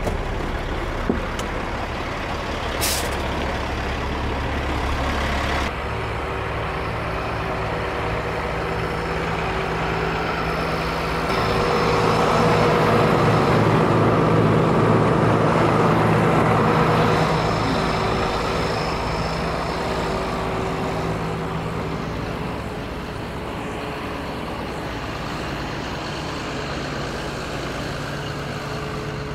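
Truck engine running as the truck drives, swelling louder for several seconds midway and then easing back. A short sharp sound comes about three seconds in.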